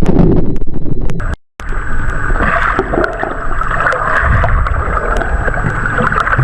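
Underwater noise: a loud low rumble packed with clicks for about the first second, a short dropout, then a steady hiss over a low rumble with faint ticks about twice a second.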